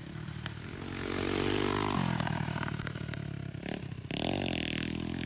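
Apollo RFZ 125 pit bike's single-cylinder engine revving up and down as the bike is ridden, rising about a second in, dropping back near two seconds and giving a quick rev near four. It runs without its exhaust, which has fallen off, so it sounds a little rough.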